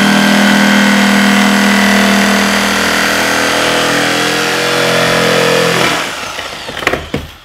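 Bosch electric jigsaw cutting a curve through a thick wooden board, running steadily, then winding down about six seconds in. Two sharp knocks follow near the end.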